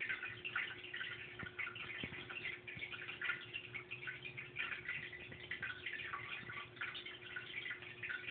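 Water in an aquarium tank trickling and dripping continuously in a fine irregular patter, over a faint steady hum.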